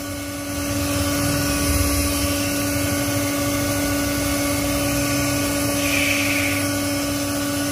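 Aldo snail-type centrifugal blower with a non-capacitor motor running steadily: a constant motor hum over a strong rush of air from the fan, blowing hard.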